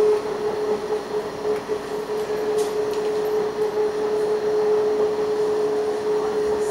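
Tram running along street track at steady speed, heard from inside the car: rolling noise with a steady mid-pitched tone from the drive.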